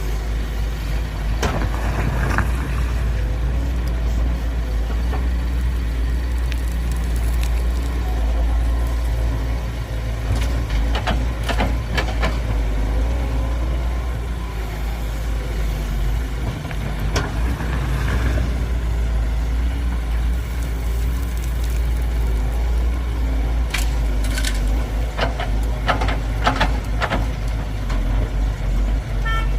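Heavy diesel engines of an excavator and dump truck running with a steady low rumble, with scattered metallic clanks and knocks from the machinery moving soil, in small clusters toward the middle and near the end.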